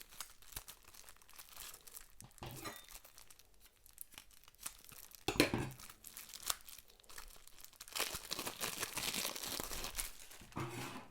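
Plastic shrink-wrap on a deck of game cards crinkling and tearing as it is opened, with scattered rustles and a denser stretch of crinkling near the end.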